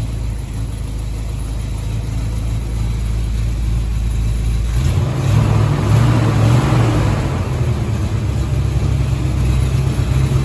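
1983 Chevy Silverado's engine idling with a rattle, then given a little throttle about halfway through, its pitch and loudness stepping up as the rattle goes away. The rattle comes from the tailpipe touching the transmission once everything is hot.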